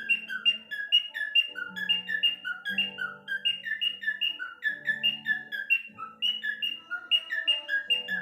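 A bird chirping rapidly and evenly, about four short chirps a second, over background guitar music.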